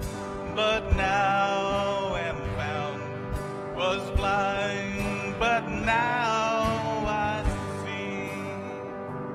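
Live worship band playing a slow hymn: a man singing with a wavering voice over electric and acoustic guitar.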